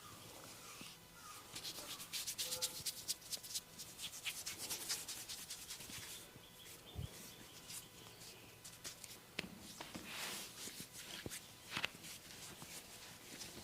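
Fingers scratching and rubbing through hair on the scalp during a head massage, a crackly rustle that comes in dense clusters and is busiest in the first half. There is a brief low thump about seven seconds in and a few sharp clicks later on.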